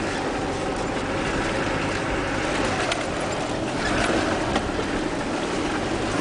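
Land Rover Discovery driving slowly along a muddy, waterlogged track, heard from inside the cab: a steady low engine hum with rattling and jolting noise.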